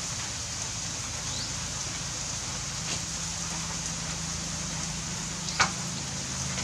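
Steady background hiss with a low hum underneath, and one short sharp sound about five and a half seconds in.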